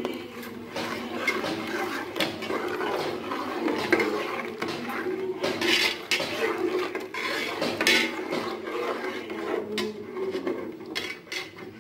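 Metal spoon and ladle stirring and scraping in a metal pot of bubbling tamarind gravy, with frequent clinks and knocks against the pot's sides.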